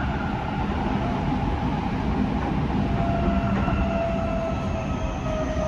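Tokyo Metro 05 series electric train running, heard from inside the passenger car: a steady rumble of wheels on rail, with a faint motor whine that slowly falls in pitch.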